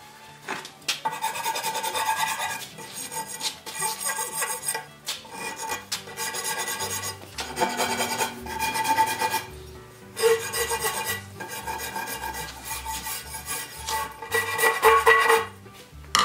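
Hand rasp worked in strokes along the edge of a wooden sled bunk timber, shaping it: about a dozen rasping strokes, roughly one a second, with a short pause about two-thirds of the way through.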